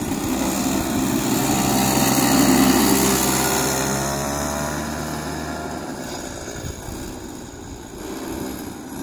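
Small go-kart engine running, its pitch rising and falling as the kart is driven; loudest about two and a half seconds in, then gradually fading away.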